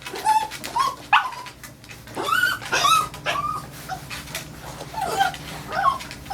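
A dog whining and yelping in a series of short, high cries, typical of a dog resisting being groomed.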